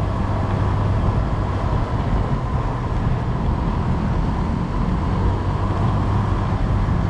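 Honda Click 125i scooter's single-cylinder engine running steadily at cruising speed, with wind rush and road noise on the camera's microphone.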